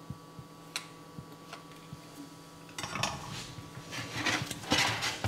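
Metal fork scraping and clinking against a glass bowl while mashing soft bread crumb with fried onions. A few light clicks at first, then repeated scraping strokes from about three seconds in, loudest near the end.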